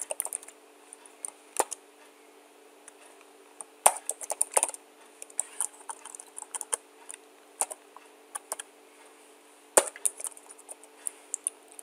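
Typing on a computer keyboard: irregular key clicks, alone and in short runs, with sharper strikes about four seconds in and near ten seconds. A faint steady hum lies underneath.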